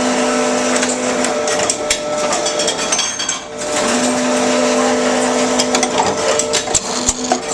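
Tomra Tx2 reverse vending machine's motor-driven rollers spinning a container to read its barcode. The motor hums, cuts out, and starts again twice, while the container clicks and knocks against the machine. The user says this machine won't spin bottles properly, so it fails to see the barcode.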